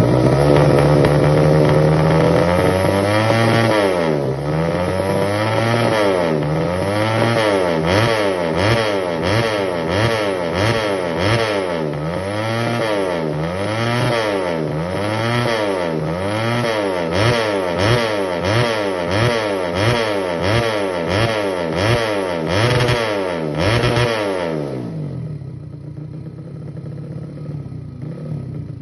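Yamaha Jupiter (5TP) single-cylinder four-stroke engine, tuned to MP2 spec, running through a Creampie CP2 RX aftermarket exhaust. It holds a steady rev for a few seconds, then is revved up and let fall again and again, about once every second and a half, and settles to a lower, quieter idle near the end.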